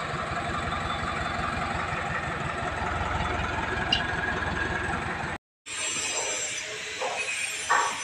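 Diesel engine of an Escorts Hydra 15 pick-and-carry crane running steadily with a fast low throb. It cuts off abruptly about five seconds in, leaving fainter background noise and a couple of sharp knocks near the end.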